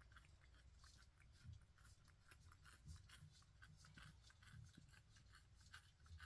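Near silence with faint, irregular small clicks and a few soft thumps.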